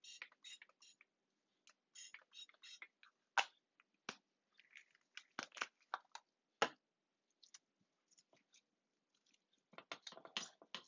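Small dollops of solid coconut oil being dotted into a glass baking dish: faint scattered clicks and soft squelches, with a few sharper clicks against the glass in the middle. Near the end a gloved hand starts rubbing the oil over the dish.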